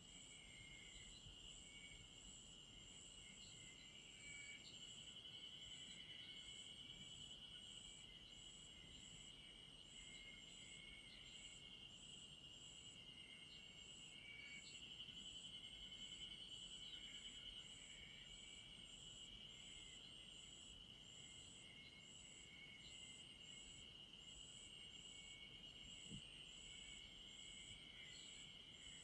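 Several insects calling together. One keeps up a steady high trill, a higher chirp repeats a little more than once a second, and a lower chirping comes and goes.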